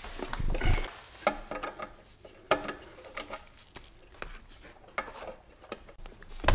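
Scattered sharp clicks and light knocks of plastic and metal parts being handled as a 9-pin serial tuning cable's connector is fitted to the back of a Megasquirt ECU, with faint rustling of the cable in between.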